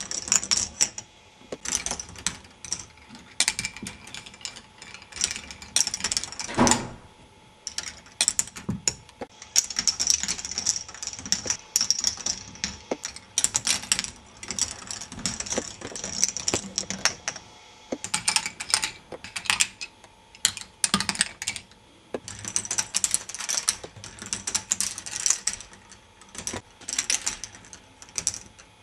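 K'nex ball machine running: plastic balls rolling and rattling along plastic tracks, with many sharp irregular clicks and knocks as balls drop and the plastic parts move.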